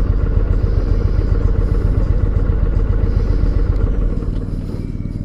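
Motorcycle riding along, its engine and wind noise steady, then easing off and getting a little quieter about four seconds in.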